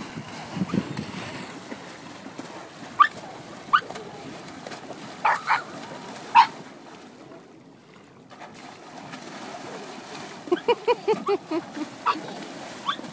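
A palomino pony pawing and splashing in shallow lake water, with short, high, rising animal calls breaking in over it several times and a quick run of lower calls near the end.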